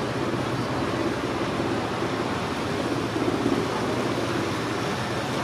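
A river cruiser's engine running steadily at low speed, a low hum under an even hiss.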